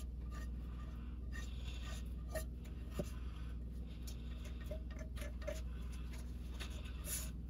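Faint scraping and light ticks of a silicone spatula wiping butter and pan drippings out of a nonstick frying pan, over a steady low hum.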